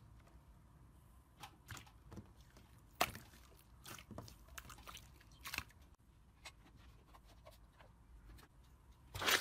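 Hands pressing and pulling thick slime: scattered soft sticky squelches and small wet pops, with a louder burst of squelches near the end.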